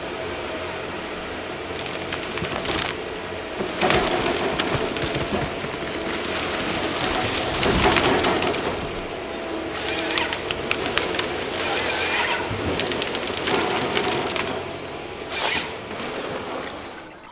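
Ponsse Ergo harvester at work, its engine and hydraulics running while the harvester head grips and feeds a log through its delimbing knives. Loud cracks and snaps of branches and wood break out repeatedly over the engine noise, loudest about four and eight seconds in.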